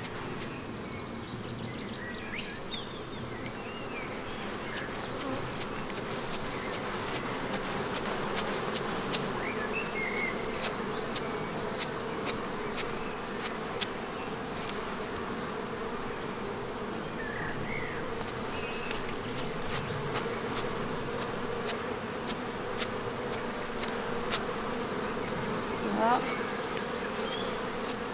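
Honeybees of an open hive buzzing steadily while a bee brush sweeps them off a brood frame, with faint scattered ticks.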